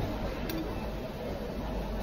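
Steady restaurant background noise, with one sharp click about half a second in from a metal fork touching a ceramic plate.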